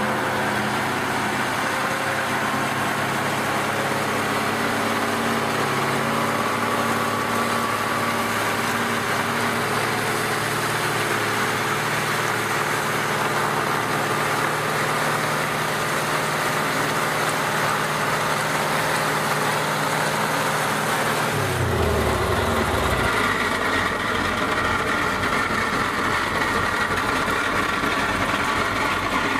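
KamAZ 6x6 truck's V8 diesel engine held at steady high revs while the rear tandem wheels spin on the road in a burnout, under a broad rushing noise of spinning tyres. About 21 seconds in the engine note drops away and the engine settles.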